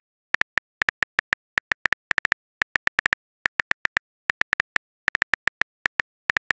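Texting-app keyboard tap sound effect: a quick, uneven run of short, identical clicks, about six a second, as a message is typed out letter by letter.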